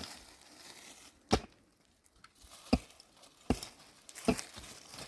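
Four sharp blows, about a second apart, of a hand tool striking wood during construction work, with light rustling between the blows.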